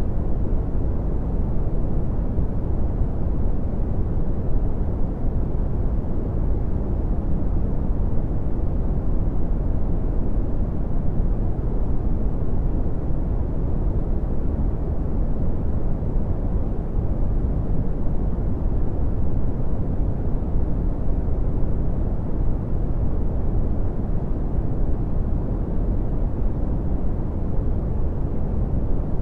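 Steady red (Brownian) noise: a deep, even rumbling hiss with most of its power in the bass and little treble, unchanging throughout.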